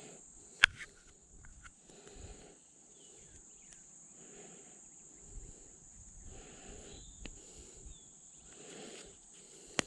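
Steady high-pitched insect drone, as from crickets or cicadas, with soft noisy swells recurring about every second and a half. Two sharp clicks, one about half a second in and one near the end, are the loudest sounds.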